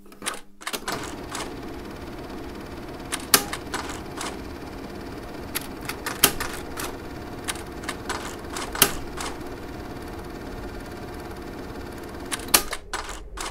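A steady mechanical whir with irregular sharp clicks and clacks over it, the loudest a little over three, six, nine and twelve and a half seconds in. It is a sound effect of an old machine.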